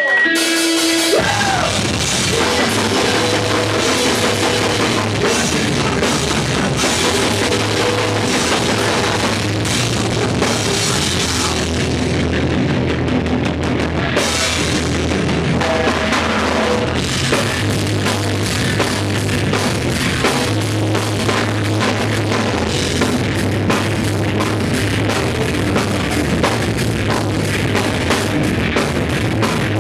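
Live thrashcore punk band playing loud and fast: distorted guitars, bass, and drums with crashing cymbals. A short whining tone opens, then the full band comes in about a second in.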